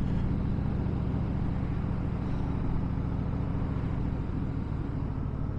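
Harley-Davidson Fat Boy Lo's air-cooled V-twin running steadily under way, with wind noise over the rider's microphone.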